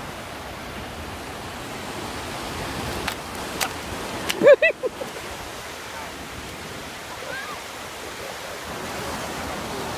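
Steady wash of surf breaking on a sandy beach, with wind on the microphone. A couple of sharp clicks come about three seconds in, and about four and a half seconds in a short loud cry in three quick notes.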